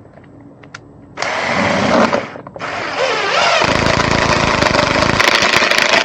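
Electric drill running under load in two goes: a short burst of about a second, then after a brief pause a longer run of about four seconds, with a deeper rumble joining in the middle of it.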